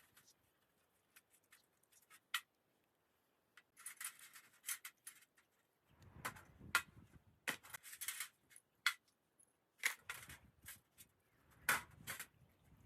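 Small metal parts clinking and scraping as they are handled during work on a starter motor: irregular sharp clicks and clinks, some in quick clusters, with a few dull knocks.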